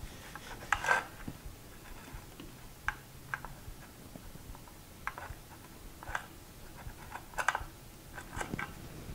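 Scattered small clicks and ticks at irregular intervals, the loudest about a second in and again near the end, from hand-soldering component leads onto a circuit board with an iron and solder wire.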